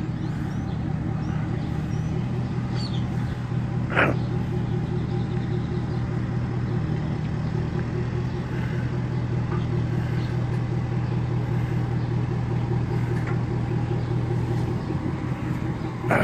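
Tow vehicle's engine running steadily at low speed as it backs the boat trailer into place, with one brief high squeak about four seconds in.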